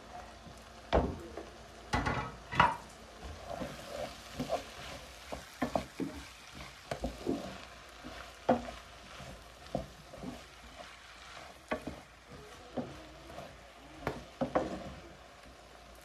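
Sliced peppers and onions stirred in a frying pan with a wooden spoon: irregular knocks and scrapes of the spoon against the pan over a faint sizzle. The sharpest knocks come in the first three seconds, as the peppers go in.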